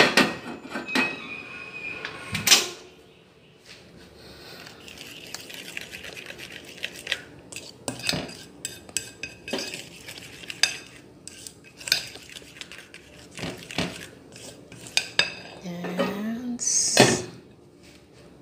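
A metal spoon or utensil clinking and scraping against a mixing bowl while cake batter is stirred, with irregular sharp knocks of kitchenware.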